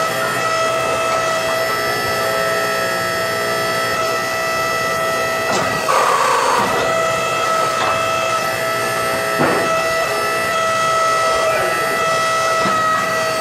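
Hydraulic forging press running with a steady whine while its die squeezes a hot 4140 steel sledgehammer head. A short rush of noise comes about six seconds in and again near the end, with a couple of sharp clicks between.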